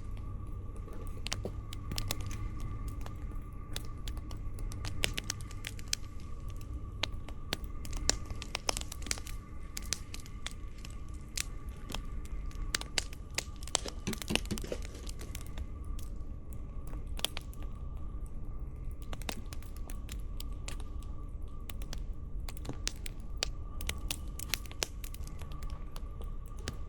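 Wood campfire crackling, with irregular sharp pops and snaps several times a second over a steady low rumble.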